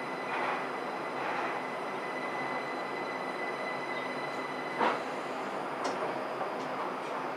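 Linimo HSST maglev train moving slowly, heard from inside at the front: a steady running noise with a thin, constant high tone. A few brief swishes pass over it, the loudest about five seconds in.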